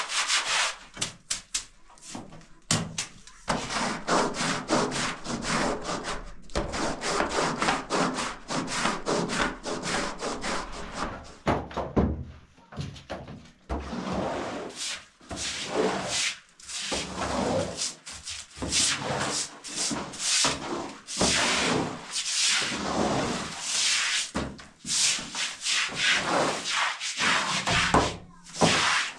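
Stiff straw brooms scrubbing a wet floor in rapid, rasping strokes. In the second half the strokes come more separately, about one a second.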